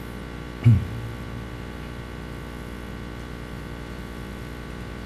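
Steady electrical hum from the sound system, with one brief low thump with a quick downward sweep in pitch less than a second in.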